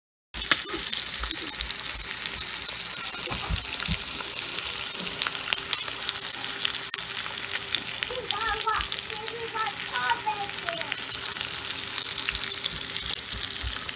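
Ribeye steak frying in melted butter: a dense, steady sizzle full of fine spitting crackles, cutting in abruptly just after the start.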